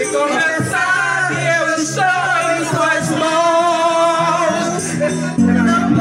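Karaoke music: a Portuguese-language love song's backing track playing, with voices singing along into microphones.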